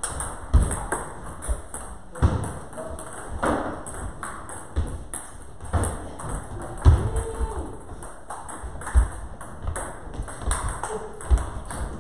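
Table tennis balls clicking irregularly off bats and tables, with dull low thumps mixed in.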